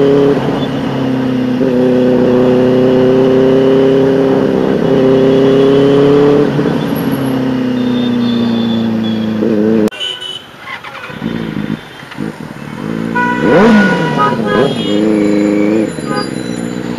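Benelli TNT 600i inline-four engine through a loud aftermarket Ixil exhaust, cruising with a steady note that drops in pitch as the bike slows. The sound falls away suddenly about ten seconds in as the throttle closes. A quick rev blip follows a few seconds later, then the engine settles back into a steady note.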